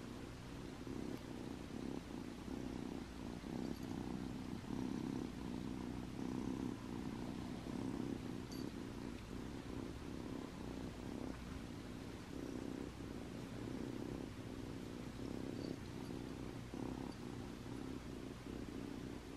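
A young dilute calico munchkin kitten purring steadily and continuously, close up, while being stroked.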